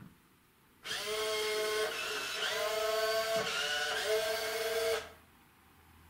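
Finch robot's small geared wheel motors whining as it drives and turns, starting about a second in and cutting off about four seconds later. The pitch shifts several times as the robot changes speed or direction.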